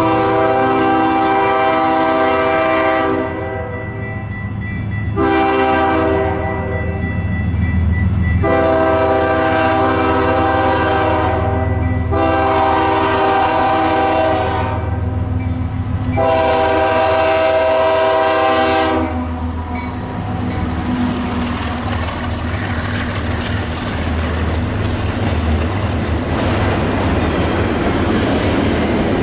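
Train's multi-note air horn sounding a series of long blasts, the last stopping about 19 seconds in. The train then runs past with a steady rumble and wheel clatter on the rails.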